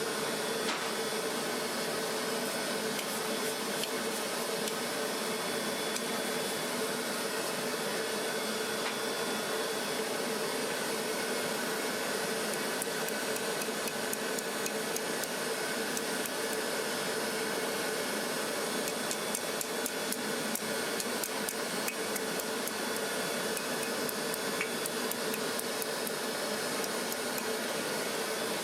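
Forge air blower running with a steady rush of air and a constant hum, with faint scattered ticks and clinks that grow more frequent in the last third.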